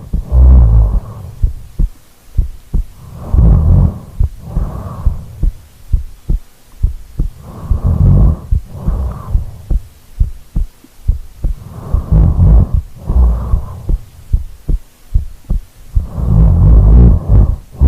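A sleeping woman's heartbeat, heard as steady low beats through a microphone pressed against her body. Deep sleep breathing comes in loud in-and-out pairs about every four seconds.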